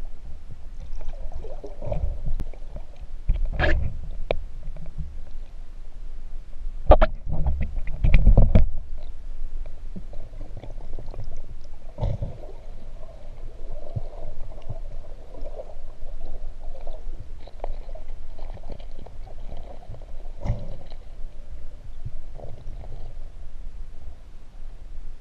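Muffled underwater rumble and water movement picked up by a submerged camera, broken by several sudden knocks and thumps. The loudest come about seven to eight and a half seconds in.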